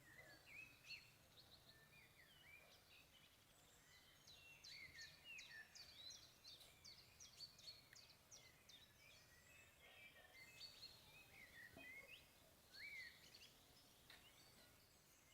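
Faint birdsong: several small birds chirping and twittering in quick, rising and falling notes, busiest in the middle, over a low background hum.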